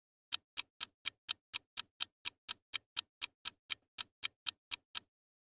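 Clock-ticking countdown sound effect: about twenty crisp, evenly spaced ticks, roughly four a second, that stop about a second before the end.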